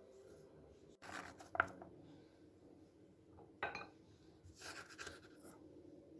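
Faint kitchen handling sounds of food preparation: a few short, soft scrapes and rustles, about a second in, again past the middle, and once more near five seconds.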